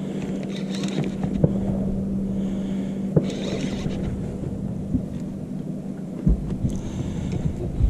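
Steady electric hum of a boat's trolling motor, over wind rumbling on the microphone, with a few sharp clicks from the rod and reel being handled during the fight with a fish.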